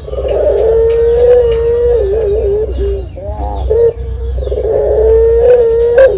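Barbary dove (puter) cooing in long, drawn-out notes, each held on one pitch for a second or more. A wavering stretch and a few short rising notes come midway.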